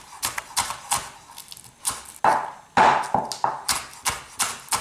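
Chef's knife chopping through spring onions onto a wooden cutting board: a string of sharp, irregular knocks, about two to three a second.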